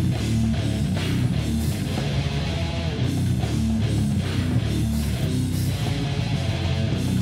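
Metal band playing an instrumental passage: a distorted electric guitar riff over bass guitar and a drum kit with steady cymbal hits, no vocals.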